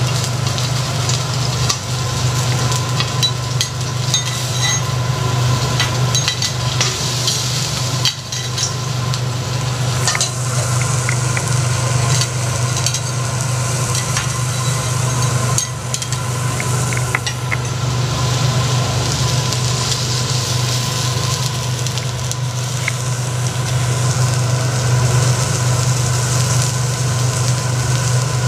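Japanese tiger prawns sizzling on a hot teppanyaki steel griddle, with steel spatula, knife and fork scraping and clicking against the plate. A steady low hum runs underneath throughout.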